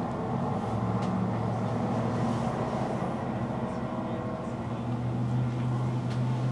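City bus engine running with a steady low drone, heard from inside the bus; the engine note strengthens about five seconds in.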